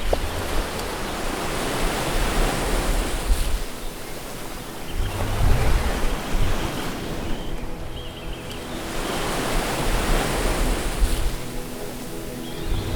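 Ocean surf breaking and washing, a hiss that swells and fades about every three to four seconds. Faint music comes in under it from about five seconds.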